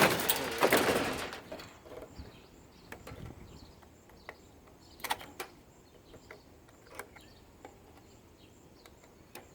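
Plastic parts of an air purifier being pulled apart and handled: a loud scraping rustle in the first second and a half, then scattered light clicks and knocks. Birds chirp faintly in the background.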